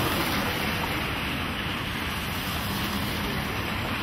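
Steady rushing outdoor noise of wind, with the low rumble of wind on the microphone and street traffic beneath it.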